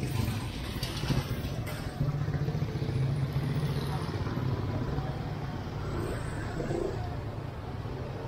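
Street traffic: a motor vehicle's engine running close by, a steady low rumble that eases a little toward the end, with people's voices in the street.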